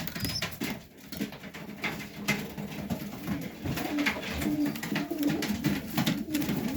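Domestic pigeons cooing, low and drawn out, with scattered short clicks and scuffs.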